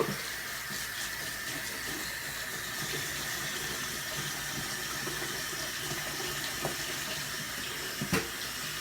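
Water running steadily, with a sharp knock near the end.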